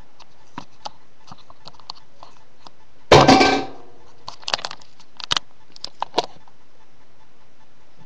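Webcam being handled close to its microphone: a loud rustling thump about three seconds in, then a run of sharp clicks and knocks.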